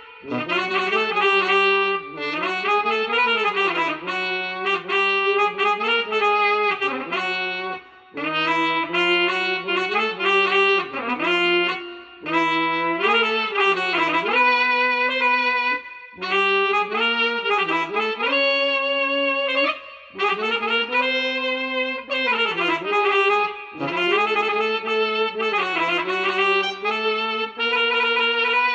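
Instrumental music: a melody on a reedy, saxophone- or brass-like wind voice played in phrases of a few seconds with short breaks between them, over a lower sustained line, with no drums.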